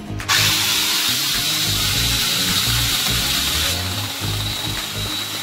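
Angle grinder driving an electric chainsaw adapter, switched on suddenly and running with a steady high whine and a dense rush of noise that thins a little at the top near the end.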